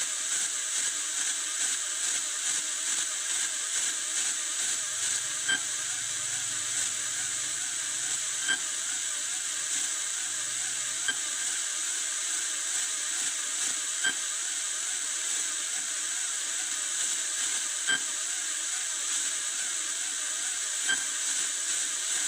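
Steady electronic hiss from the circuit and signal detector under test, with a fast warbling tone underneath and a sharp click roughly every three seconds.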